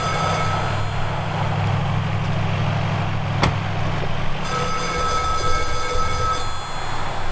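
Payphone ringing in two rings: one dies away about a second in, and the next sounds for about two seconds, starting about four and a half seconds in. A car door shuts with a single thump about three and a half seconds in, over a low hum in the first half.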